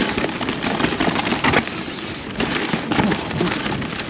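Mountain bike rattling at speed through a rough rocky section, a dense run of knocks from tyres and bike hitting rock over a steady hiss of wet tyres and wind.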